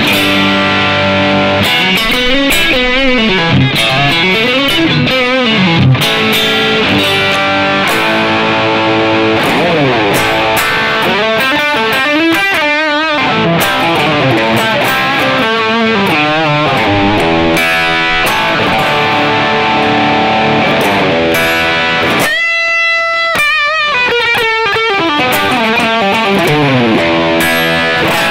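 Electric guitar, a Yamaha Pacifica 212, played loud through a Yamaha THR10 amp on a British-style high-gain distortion setting: a fast lead solo of quick runs and sustained notes that bend and waver in pitch.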